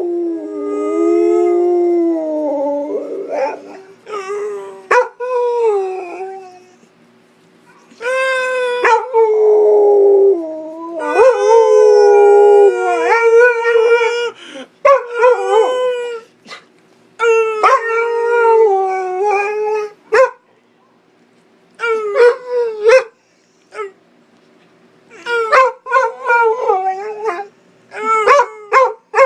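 A pit bull howling together with a man imitating a howl: long wavering howls, then after a pause a run of shorter, broken howls and yips.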